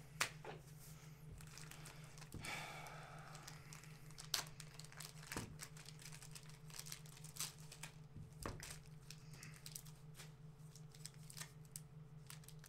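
A trading card pack's wrapper being crinkled and torn open by hand, faint, with scattered small clicks and rustles, over a low steady hum.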